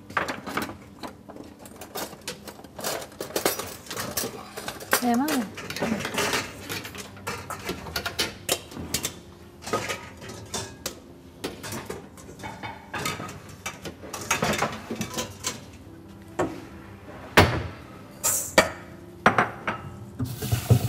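Scattered clinks and knocks of dishes, pots and utensils being handled on a kitchen counter while cooking.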